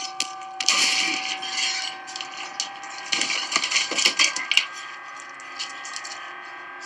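Crunching, cracking impact sounds from a violent film scene, playing through speakers and caught by the webcam microphone. There are two dense runs of crackling hits, one in the first two seconds and another from about three to four and a half seconds in, then it goes quieter, with a faint steady hum underneath.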